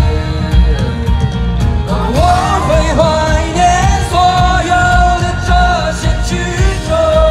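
Live band with acoustic guitar, keyboard and drum kit playing a steady beat; a male voice comes in about two seconds in, singing long held notes.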